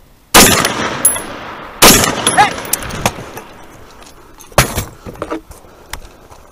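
Two rifle shots from a scoped AR-style rifle about a second and a half apart, each with a long echoing tail. Later come a few sharper, quieter knocks and clicks of the guns being handled.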